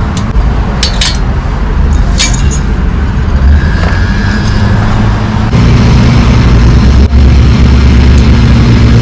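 A few sharp metal clinks in the first couple of seconds as brake pad hardware clips are fitted to a disc brake caliper bracket, over a loud steady low rumble that gets louder about halfway through.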